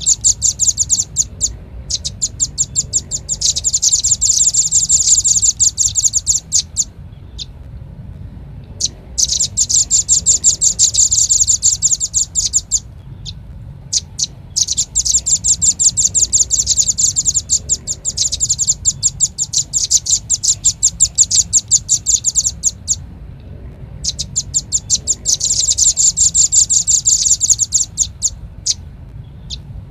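Velvet-fronted (red-billed) nuthatch lure call: long runs of rapid, sharp, high chips, several seconds at a time with short breaks between runs. A steady low hum sits underneath.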